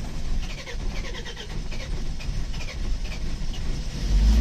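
Mercedes Sprinter diesel engine running rough just after a cold start, with misfires, then revved near the end. The misfires point to a fuel-injection fault that the mechanic does not expect from a diesel at 5–7 degrees.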